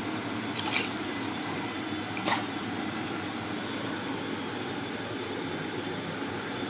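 Steady room noise with two brief sharp rustles or clicks, about a second in and again about two seconds in.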